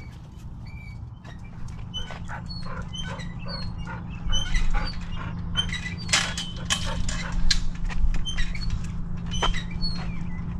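Several dogs jostling at a chain-link gate: scattered clicks, knocks and rattles, with short high squeaks through the middle, over a steady low hum.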